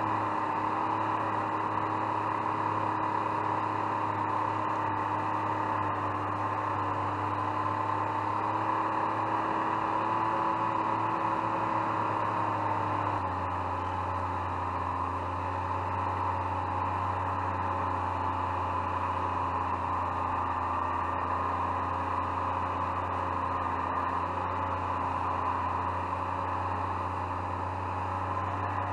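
Snowmobile engine running steadily at trail speed while towing a homemade groomer through snow. Its pitch drops slightly about 13 seconds in.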